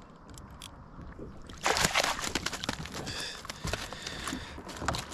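A landing net splashes into the water about a second and a half in as a hooked fish is scooped up beside a kayak, followed by a string of spattering splashes and knocks as the fish thrashes in the net and water drips off it.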